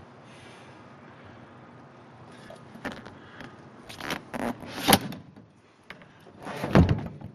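Handling noises: a few scrapes and knocks, the loudest about five seconds in, over a low steady background.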